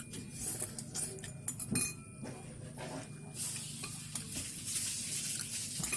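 Cutlery clinking and scraping against a plate while noodles are eaten, with scattered sharp clicks; from about three seconds in, a steady hiss comes in under it.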